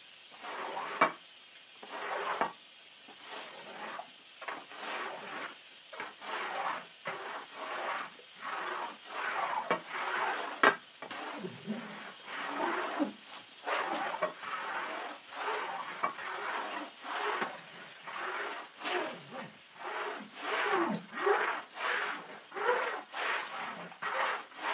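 Iron scraper dragged over a soaked, muddy rug in repeated strokes about once a second, a wet rasping scrape that pushes the dirty water off, with an occasional sharp knock.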